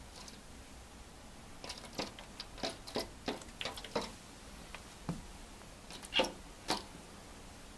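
A run of about a dozen light, irregular taps or clicks, the two loudest near the end.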